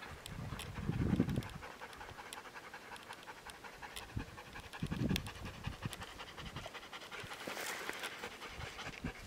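Golden retriever panting, with a couple of low rumbles about a second in and again about five seconds in.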